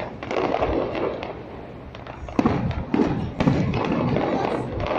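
Fireworks bursting overhead: a few sudden booms with low rumbling tails, three of them coming close together in the second half.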